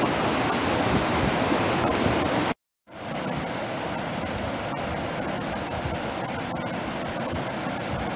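River rapids rushing steadily over rocks. The sound cuts out for a moment about two and a half seconds in, then carries on a little quieter.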